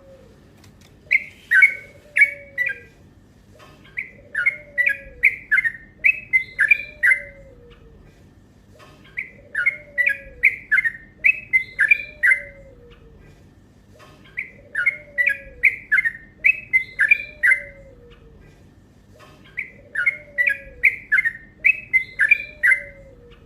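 Yellow-vented bulbul (cucak trucukan) singing: repeated bouts of quick bubbly chirping notes, each burst lasting two to three seconds with short pauses between, five bouts in all. A fainter lower falling note repeats about once a second underneath.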